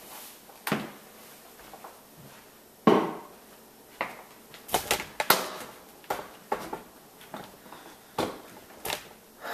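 Scattered knocks, clunks and clicks of kitchen items being handled and set down on a counter, the loudest about three seconds in and a quick cluster around five seconds.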